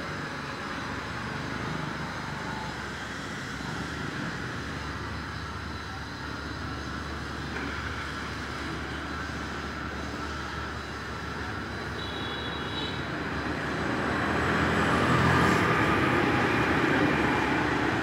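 Street traffic running steadily, with a motorbike passing close and getting louder near the end.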